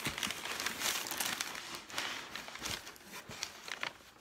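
Crumpled packing paper crinkling and rustling as hands open a cardboard box and push the paper aside, with sharp crackles throughout. Loudest in the first couple of seconds, then it dies down.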